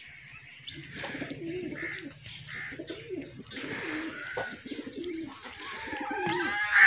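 Fantail pigeons cooing over and over in short, bending phrases as the males strut and display with fanned tails. Higher chirps from other birds sound above the cooing, and a louder call comes near the end.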